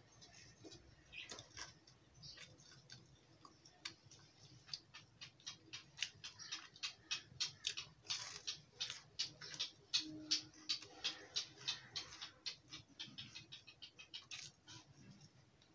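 A person chewing fried bread pakoda with its crisp battered crust: a quick series of crunches that starts a few seconds in, is densest in the middle and thins out toward the end.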